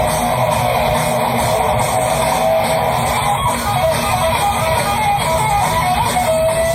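Live hard-rock band playing, with the electric guitar carrying a lead melody of bent, gliding notes over bass and drums, and no vocals.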